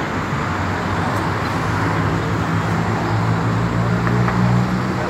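Street traffic at a busy intersection, with the steady low hum of a nearby vehicle engine that grows stronger from about a second and a half in and drops away just before the end.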